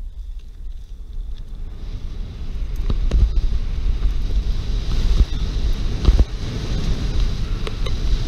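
Wind noise buffeting the on-board camera's microphone and the rumble of a mountain bike rolling fast down a dirt trail. It grows louder about two seconds in as the bike picks up speed, with a few sharp knocks as it hits bumps, the loudest a little after six seconds in.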